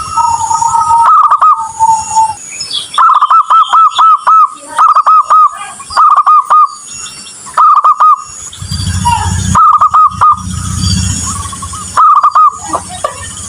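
Zebra dove cooing: repeated runs of short, rolling notes, a handful at a time with short gaps between runs. A low rumble sits under the song in the middle.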